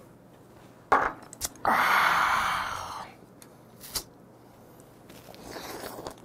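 A man's loud, breathy exhale, a little over a second long and fading, right after downing a shot of soju, with a brief knock just before it. Later comes a light click of chopsticks against a plate.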